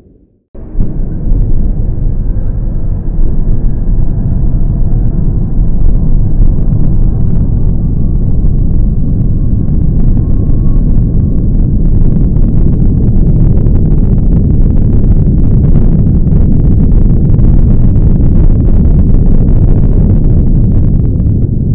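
Super Heavy booster's 33 Raptor rocket engines firing in a static fire test: sound cuts in suddenly about half a second in and holds as a loud, deep, steady rumble. Sharp crackling grows stronger through the second half.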